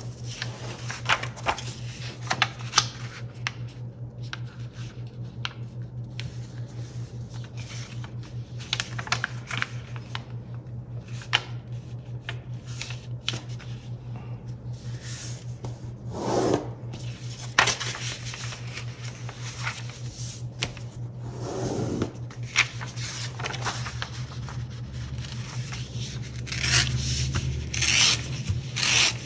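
A sheet of paper being folded by hand: fingers rub and press along the creases in many short crinkling strokes. Near the end comes louder rasping as the paper is torn along a fold to separate a strip. A steady low hum runs underneath.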